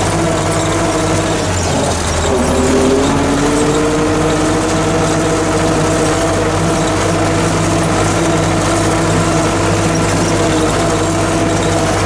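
MTZ-50 tractor's four-cylinder diesel running steadily under way, heard from inside the cab, with a steady whine over the engine note. About two seconds in the engine note drops briefly, then climbs back and settles.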